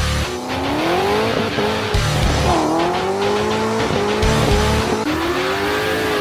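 Car engine accelerating hard, its pitch climbing, dropping sharply at a gear change about two and a half seconds in, then climbing again. Music with a heavy low beat plays underneath.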